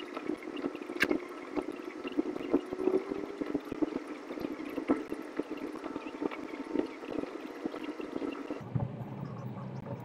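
Driving noise heard from inside a moving car: a steady drone with many small rattles and clicks. About nine seconds in, the sound turns to a duller, lower rumble.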